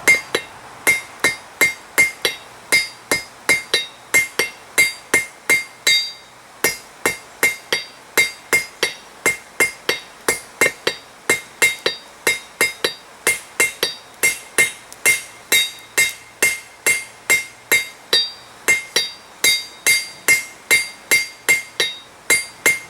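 Hand hammer striking hot steel on a Peter Wright anvil in a steady rhythm, a little over two blows a second, each blow leaving a bright metallic ring. The smith is drawing the end of a fire steel blank out to a taper.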